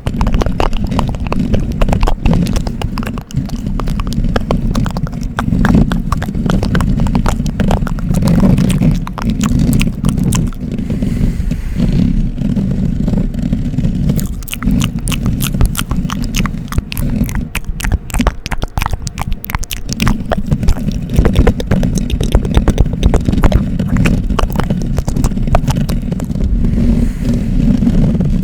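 Close-miked ASMR triggers: rapid, crackly scratching and clicking right at the microphone, with a heavy low rumble from contact with it.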